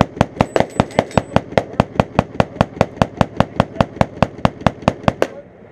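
A long, unbroken string of gunshots, evenly spaced at about five a second, some thirty rounds in all, that stops abruptly about five seconds in.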